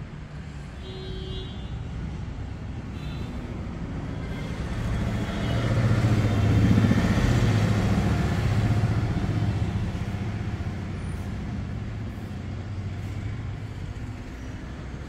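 A motor vehicle passing by: a low engine hum with road noise that builds to a peak about seven seconds in, then fades away.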